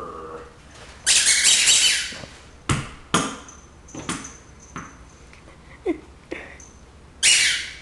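Tennis ball bouncing on a hard floor: a string of sharp thuds half a second to a second apart. Two bursts of hiss-like noise, about a second in and near the end.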